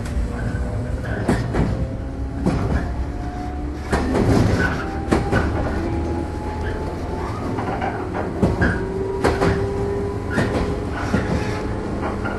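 Running noise inside a JR 115-series electric multiple unit's motor car: the DC traction motors' whine slowly rising in pitch as the train gains speed, over a low rumble, with sharp clacks as the wheels cross rail joints.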